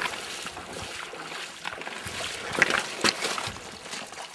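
Water splashing and sloshing as a person wades through a shallow river in waders, with a few sharper splashes about two and a half and three seconds in.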